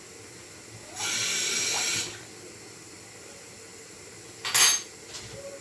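Kitchen tap run briefly, water gushing for about a second, then a shorter, louder gush a few seconds later.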